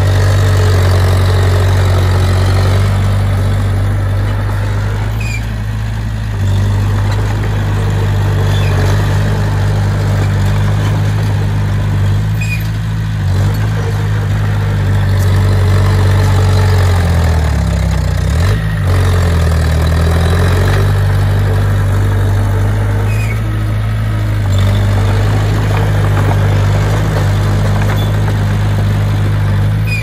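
Diesel engine of a Komatsu D20P crawler bulldozer running steadily at working speed. About two-thirds of the way through, its note dips briefly in pitch and then recovers.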